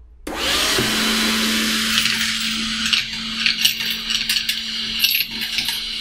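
Makita CL100D 12V cordless handheld vacuum switching on about a quarter second in and running steadily, with coins clicking and rattling sharply as they are sucked up through the nozzle.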